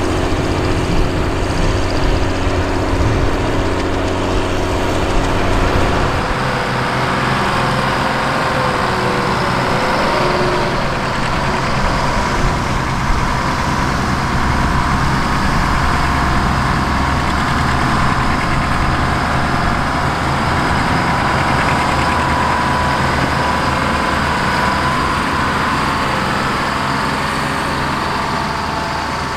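Diesel engines of big four-wheel-drive tractors working under load. It begins with a John Deere 7020 pulling a disk harrow, and about six seconds in the sound changes to a steadier engine drone with a faint wavering whine.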